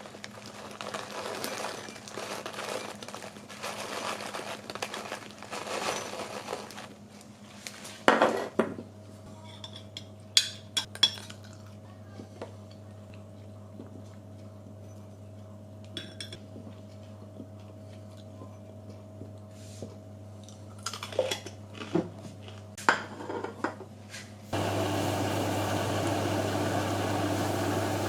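Dishes, pots and cutlery handled in a kitchen, clattering and clinking in short separate bursts. Near the end an appliance switches on abruptly and runs with a steady whirring hum.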